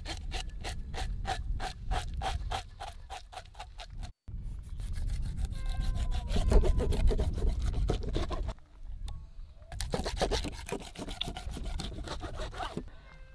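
A knife scraping scales off a whole salmon in quick, even strokes, about five a second. After a short break comes the rasping and chopping of a cleaver cutting the fish into steaks on a cutting board.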